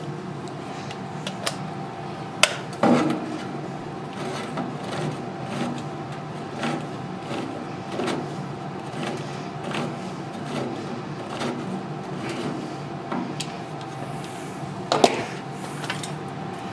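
Hand-held manual can opener cranked around a steel can, clicking at about two turns a second as it cuts the lid. A few sharper knocks come about three seconds in and again near the end, over a steady low hum.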